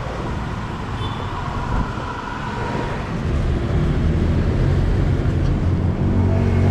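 Road traffic with a vehicle engine running, a steady low rumble that grows louder about three seconds in.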